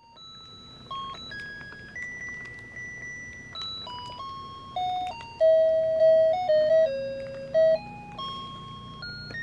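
Toy electronic keyboard playing a string of single, beep-like notes that step between high pitches, some held for a second or more. A run of louder, lower notes comes about halfway through.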